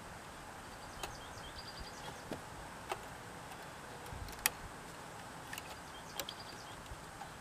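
Scattered light clicks and taps as a hand works the choke linkage rod and its connection inside an open inverter generator; the sharpest click comes about halfway through. Faint high bird chirps twice in the background.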